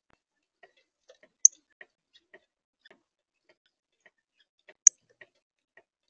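Male northern cardinal feeding on sunflower seed right at the microphone: small irregular clicks and taps of its beak working the seed on the tray, with two louder sharp ticks, one about a second and a half in and one near the end.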